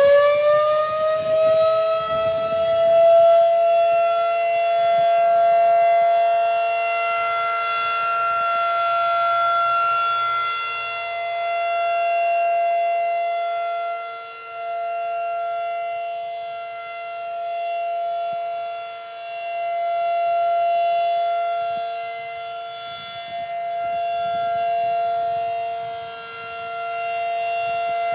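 Federal Signal 2001-SRN electromechanical outdoor warning siren sounding its Full Alert steady tone on a test. It finishes winding up to pitch in the first couple of seconds, then holds one steady tone. The tone swells and fades in loudness every few seconds as the rotating siren head turns.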